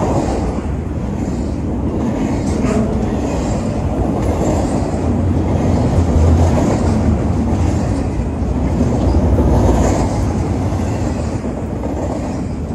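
Double-stack intermodal well cars rolling past close by: a steady loud rumble and rattle of steel wheels on the rails, with a few short clicks as wheelsets pass.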